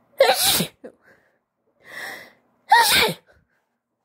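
A woman sneezing twice: two loud, wet sneezes about two and a half seconds apart, with a quieter breath drawn in before the second.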